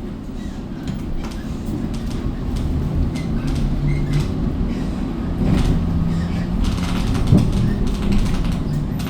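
Geumgang Express bus running with a steady low rumble, a low hum that comes and goes, and scattered rattles and clicks, with a sharp knock near the end: the strange noise the bus has suddenly started making.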